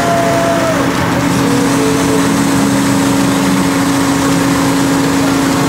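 Machinery of a menhaden purse-seine boat running steadily: a constant low hum under a loud wash of noise.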